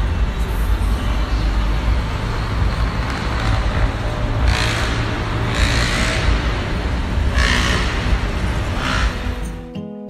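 Outdoor street-traffic noise under a heavy rumble of wind on a phone microphone, with several louder rushing surges. Near the end the noise cuts off and a light, chiming music track starts.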